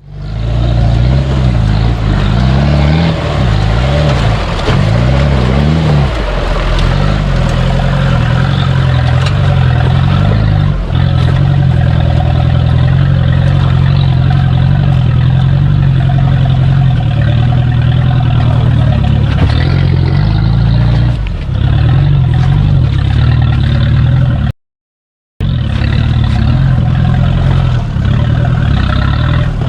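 A 4x4's engine running under load, its pitch rising and falling repeatedly as it is revved and eased off. The sound cuts out completely for under a second about 25 seconds in.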